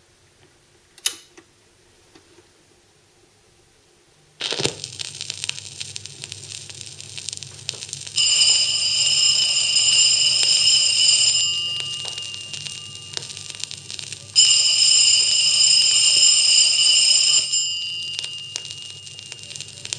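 A portable record player's stylus is set down on a record with a light click and then a thump about four seconds in, followed by surface hiss and low hum. From about eight seconds the record plays an old electric telephone bell ringing in rings of about three seconds with pauses of about three seconds, twice.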